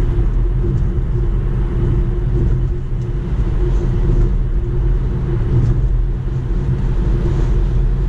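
Road and wind noise inside a Tesla Model 3's cabin at highway speed: a steady low rumble of tyres on the road with a faint steady hum over it.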